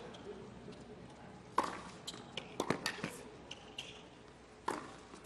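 Tennis rally on a hard court: sharp pops of the ball struck by rackets and bouncing, about a second or two apart, with short high shoe squeaks between the shots.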